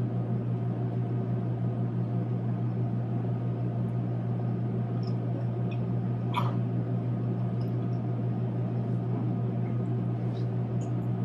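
A steady low hum, with a few faint short sounds over it about five, six and ten seconds in.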